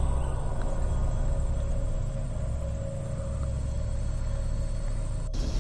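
Dark ambient background music: a deep rumbling drone with one steady held tone. It cuts off suddenly near the end.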